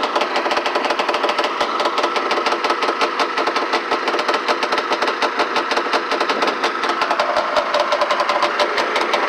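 Ski-Doo Blizzard 9700 snowmobile's two-stroke engine running at low speed through its twin pipes, with a rapid, uneven pulsing beat. This is a bottom-end roughness that the owner puts down to the carburetors.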